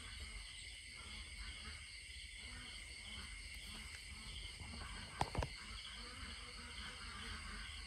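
Night insects, crickets among them, chirping in a steady pulsing chorus, with two sharp clicks a fraction of a second apart about five seconds in.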